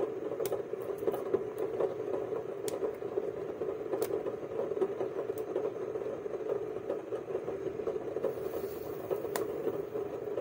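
Broccoli being broken apart and peeled by hand, with scattered sharp snaps and clicks over a steady background hum.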